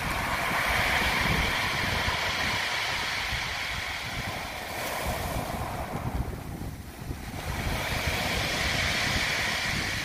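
Sea waves breaking and washing up a pebble beach, the surf swelling loud twice with a brief lull about two-thirds of the way through. Wind rumbles on the microphone underneath.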